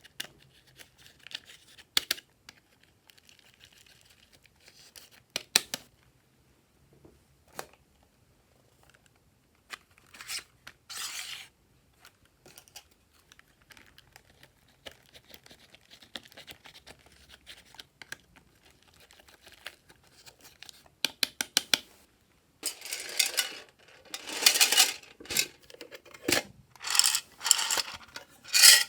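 Slime being worked by hand: sticky clicks and short crackling squelches, sparse at first, then louder and busier for the last several seconds.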